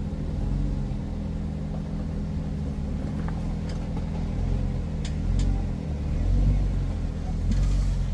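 Jeep Wrangler Rubicon engine running at low crawling speed, swelling several times with throttle as the Jeep climbs over rocks. A few faint clicks sound about halfway through.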